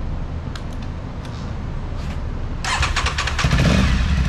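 A few light clicks, then the 2022 Aprilia Tuareg 660's parallel-twin engine is cranked by its starter and catches about three and a half seconds in. It settles into a steady idle through an aftermarket Arrow exhaust and LeoVince muffler.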